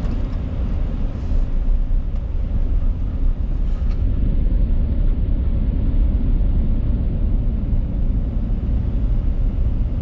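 Car driving on a paved road, heard from inside the cabin: a steady low rumble of tyres and engine.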